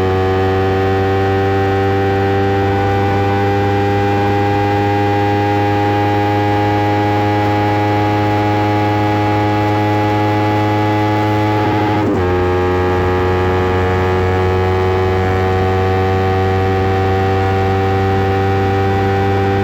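Kawasaki Ninja 300 parallel-twin engine with an Akrapovic exhaust under hard acceleration, its note climbing slowly in pitch. About twelve seconds in it drops sharply at an upshift, then climbs again.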